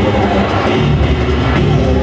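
Loud music with steady, held low bass notes.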